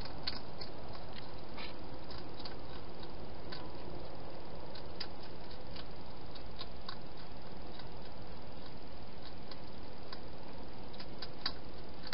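A hedgehog eating from a bowl: irregular, sharp clicks of chewing over a steady hiss.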